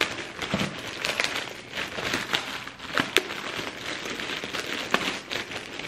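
Clear plastic polybag crinkling and rustling as it is handled and opened to pull out a garment, with a few sharp clicks.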